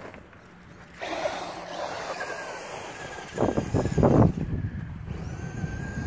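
Traxxas Slash 2WD electric RC truck's motor whining as it takes off and drives across dirt, with tyre and gravel noise. The whine starts suddenly about a second in, fades briefly and comes back near the end, and a few loud low thumps come about halfway through.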